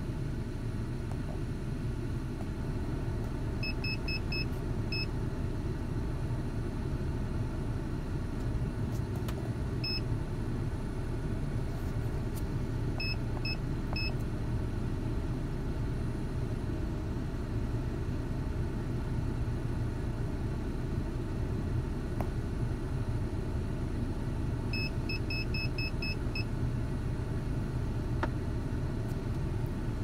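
Ford Ranger's engine idling steadily, which the owner says is running kind of weird. Over it come short high electronic beeps from a handheld OBD-II scan tool, singly and in quick runs of three to six, as its pages are scrolled.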